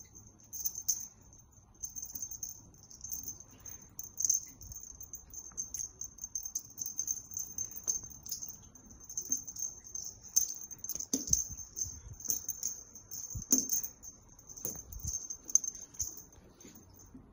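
A small bell jingling in short, uneven bursts as a cat wand toy is shaken and batted, with a few soft thumps of cats pouncing on the floor late on.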